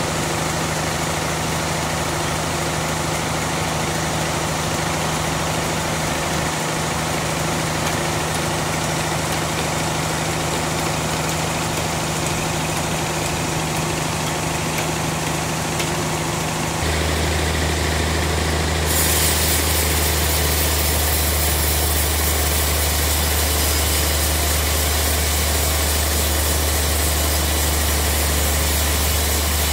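Sawmill band saw's drive engine running steadily. A little past halfway the sound changes to a deeper, louder hum, and a high hiss joins a couple of seconds later.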